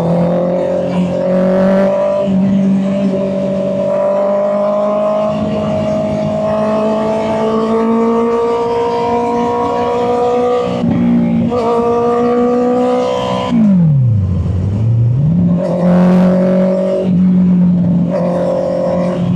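Honda CB650R's inline-four engine running under way, its note holding and slowly climbing through the gears, with brief dips at gear changes. About 14 s in the revs fall sharply and climb back a second or two later.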